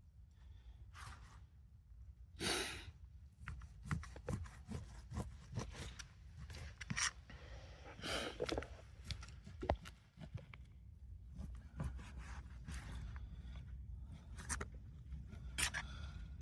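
Scattered clicks, taps and light scrapes of cooking utensils being handled over a fire-pit cooktop, with two short hissing bursts, one about two and a half seconds in and one about eight seconds in.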